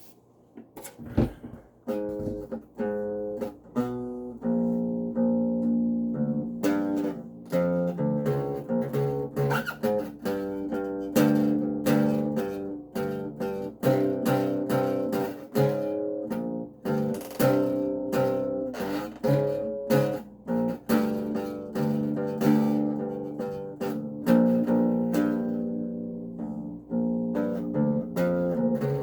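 Acoustic bass guitar being played, a continuous run of plucked notes that starts about a second and a half in.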